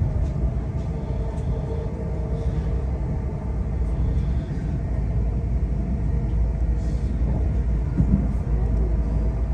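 Running noise inside a Class 350 Desiro electric multiple unit at high speed under full power: a steady low rumble of wheels and track, with a steady whine from the traction equipment.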